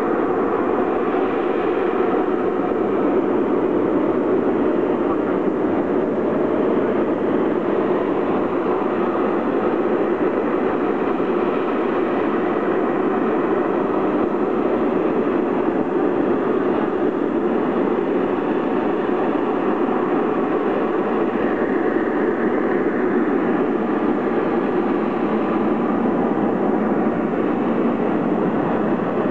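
AV-8B+ Harrier II's Pegasus turbofan running steadily and loudly as the jet hovers on its downward-vectored nozzles.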